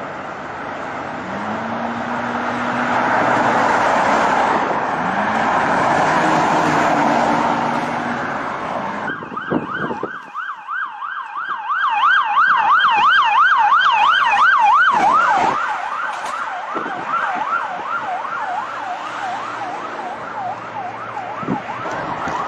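Loud rushing road noise with an engine note rising a few times. About nine seconds in, a police siren starts in a fast yelp, its pitch swinging up and down about three times a second. It is loudest for a few seconds, then carries on fainter.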